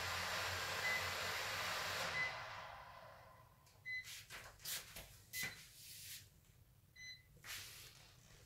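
Small toy quadcopter's motors running with a steady hiss that fades away over a second or so as they spin down, then a few handling rustles and clicks with short high beeps.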